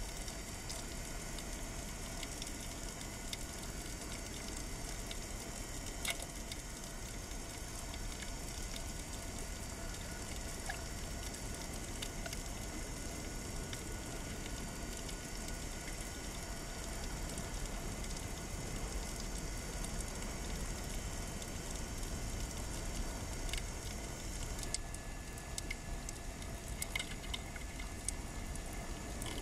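Underwater ambience recorded through a diving camera housing: a steady hiss with scattered short clicks and crackles, and a faint steady tone coming in near the end.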